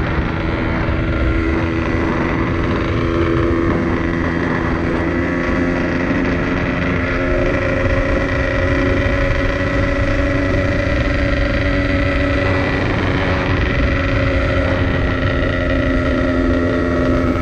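Yamaha RX-King's two-stroke single-cylinder engine running steadily while the motorcycle is ridden along a road, its pitch shifting a few times as the throttle or gear changes.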